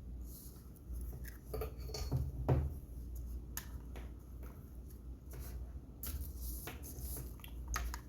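Scattered light clicks and taps of small hard objects being handled, over a steady low hum; the loudest knock comes about two and a half seconds in.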